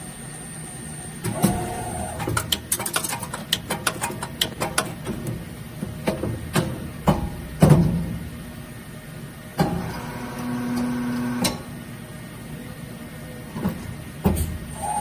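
Korea Hydraulic Machinery ultra-small high-speed injection moulding machine running: a quick run of sharp clicks and knocks, then a steady mechanical hum for about two seconds past the middle, and a few more knocks near the end.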